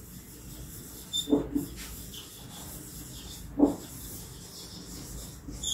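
Marker pen rubbing and scratching on a whiteboard as a word is written, with a few short louder strokes.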